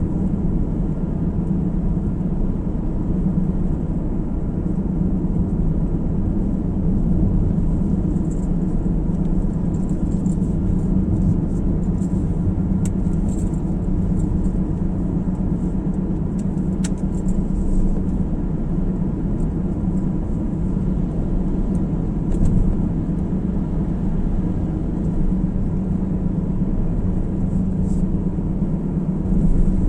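Car driving on the road, heard from inside the cabin: a steady low rumble of tyre and engine noise that holds an even level throughout.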